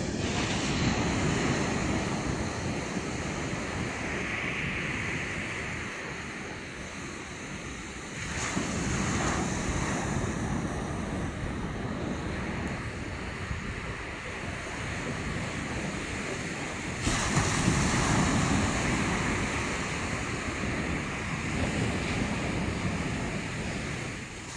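Sea surf breaking and washing up a sandy beach, with wind buffeting the microphone. The wash surges louder about 8 seconds in and again about 17 seconds in.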